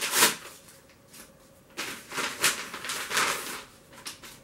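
A yellow padded paper mailing envelope being torn open and rustled, in a short burst at the start and a longer stretch of ripping and crinkling from about two seconds in, as a paperback is pulled out of it.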